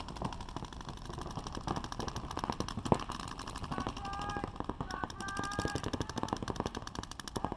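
Paintball markers firing in fast, rapid streams of pops, several guns shooting at once across the field.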